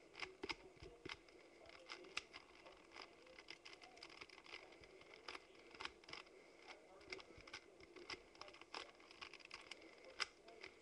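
Faint, quick, irregular plastic clicks of a Rubik's cube's layers being twisted by hand during a solve, a few clicks a second.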